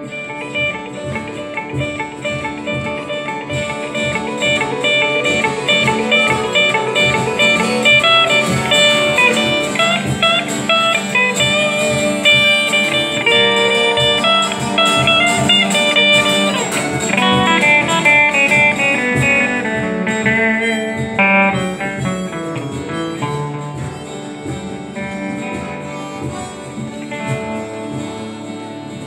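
Acoustic guitar played as an instrumental, picked notes with quick runs in the middle, getting a little quieter toward the end.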